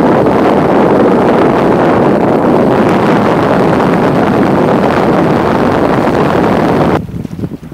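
Loud, steady wind buffeting the microphone aboard a small sailboat under sail, with the rush of choppy water mixed in. It drops away abruptly near the end.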